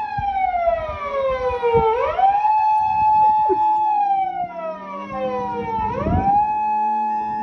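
Saint Bernard howling: long howls that rise quickly, hold, then slide slowly down, one about every four seconds. A faint two-tone ambulance siren alternates high and low beneath them.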